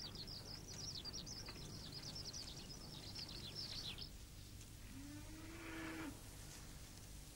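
Small birds twittering in rapid, high, repeated chirps, which stop about four seconds in. Then a cow moos once, a low call lasting about a second.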